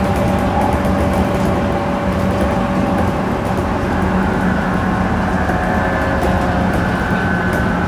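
Interior of a JR Central 211 series 5000 electric train car standing still, with the steady hum of its onboard equipment. A higher, thin whine joins the hum about halfway through.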